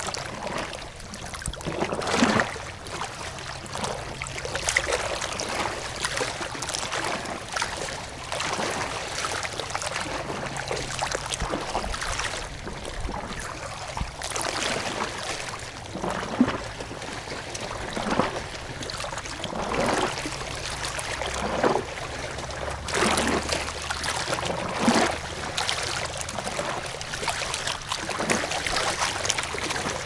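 Running water splashing and gurgling: a steady rush broken by frequent, irregular splashes.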